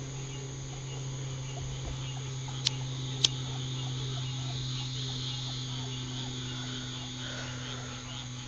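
Night chorus of crickets, a steady high trilling, over a low steady hum. Two short sharp clicks come a little under three seconds in and again just after.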